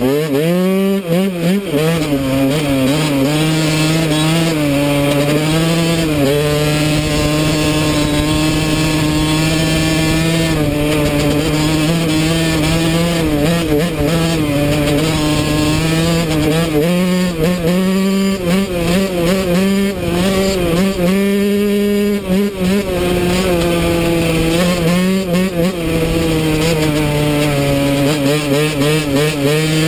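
Yamaha YZ125 dirt bike's single-cylinder two-stroke engine revving up in the first second, then running at high revs under way, its pitch dipping briefly now and then as the throttle eases and opens again.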